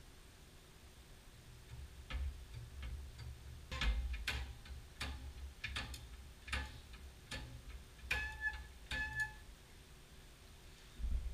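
Irregular light metallic clicks and knocks from a metal tube being handled in a drill press. A few of the knocks near the end ring briefly.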